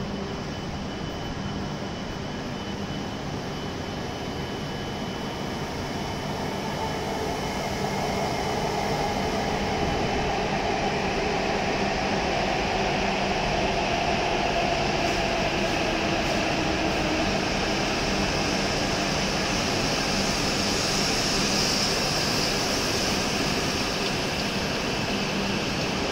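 W7 series Shinkansen train pulling into the platform and running past at slowing speed. A steady rushing of wheels and air grows louder about seven seconds in and holds as the cars go by.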